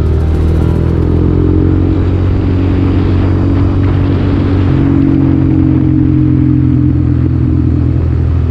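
Motorcycle engine running at a steady cruise, with a small change in pitch about halfway through.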